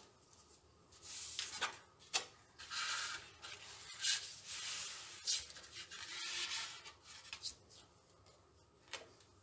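Paper and card being handled on a cutting mat: several rustling swishes as sheets are slid and rubbed flat by hand, with a few sharp crinkles. It goes quiet for the last couple of seconds.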